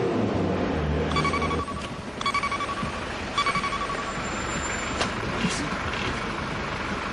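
Three short electronic beeps at one pitch, about a second apart: the alert chime of a Japanese TV news-flash (ニュース速報) ticker. It plays over steady vehicle noise, and a low engine hum cuts off about a second and a half in.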